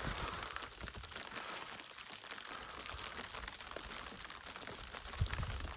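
Falling snow ticking and crackling faintly on a canopy shelter over a soft steady hiss, with a couple of soft low thumps near the end.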